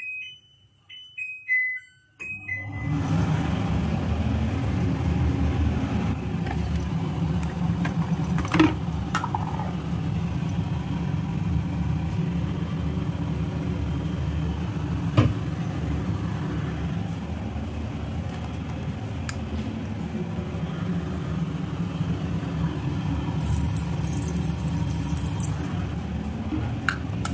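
Electric kitchen chimney (range hood) being switched on: a few short beeps from its control panel, then its extractor fan starts about two seconds in and runs with a steady low hum.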